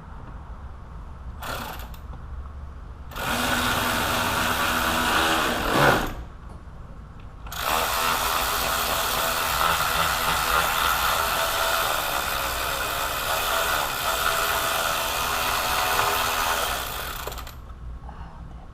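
Cordless power driver spinning a fastener in three runs: a brief burst, about three seconds, then a steady run of about ten seconds. The bolt's threads are not catching in a clip that has been spread too far open.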